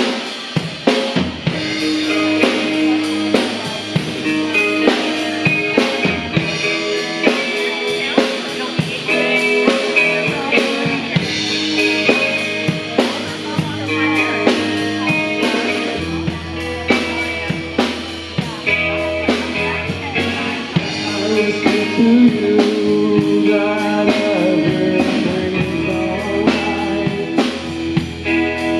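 A small rock band playing live: a drum kit keeping a steady beat under electric guitar and bass. About halfway through, the low end fills out with a deeper, heavier bass.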